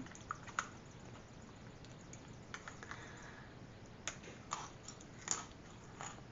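Faint, scattered crisp crunches of a Pocky biscuit stick being bitten and chewed, about eight short cracks spread over a few seconds.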